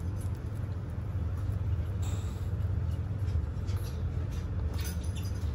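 Sulcata tortoises chewing leafy greens and pellets: small irregular crunches and leaf-tearing crackles over a steady low hum.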